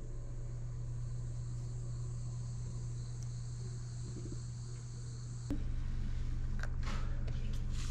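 Insects chirring outside in several steady high tones over a steady low hum. About five and a half seconds in this gives way to hot water being poured from an electric kettle into paper cups, with irregular splashes.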